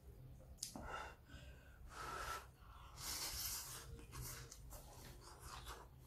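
A person slurping instant noodles, with several airy slurps, the longest and loudest about three seconds in, followed by short wet chewing sounds near the end.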